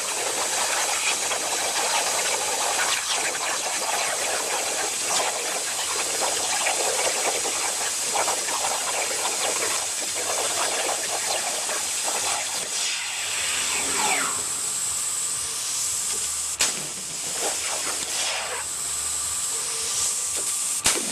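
CNC plasma cutter torch cutting, its arc and air jet giving a loud steady hiss. About two-thirds of the way through the hiss thins and a high whine comes in, with a sharp click about four seconds later and another near the end.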